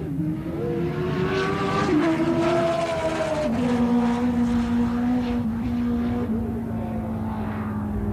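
Tuned street drag-racing motorcycle launching down the strip at full throttle. Its engine note climbs and drops sharply at an upshift about two seconds in, climbs and drops again at a second upshift about a second and a half later, then holds a steady note.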